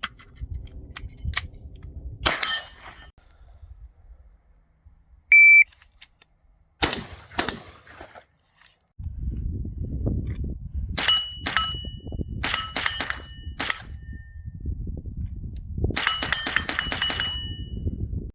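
Gunshots from several firearms in separate clips: single shots, then a cluster of shots, then a fast string of shots near the end, with metallic ringing after the hits. A short beep comes about five seconds in.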